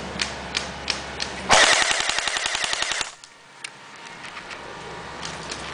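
An airsoft automatic machine gun firing one rapid full-auto burst of about a second and a half, which cuts off suddenly. Scattered single sharp clicks come before and after it.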